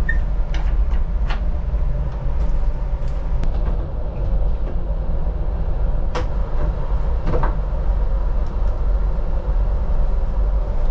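Scattered knocks and clicks of an enclosed lifeboat's roof hatch being unlatched and pushed open, over a steady low rumble.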